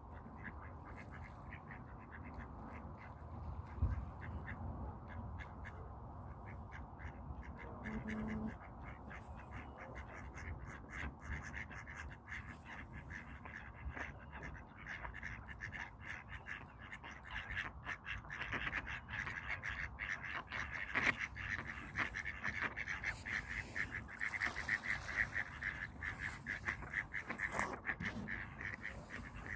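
Ducks quacking in rapid runs of short calls, getting busier and louder in the second half, with a single thump about four seconds in.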